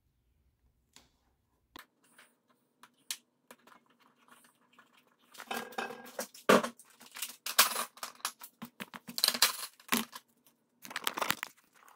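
Workshop handling noises: a few faint clicks at first, then from about halfway a run of louder, irregular rustles, clinks and clatters.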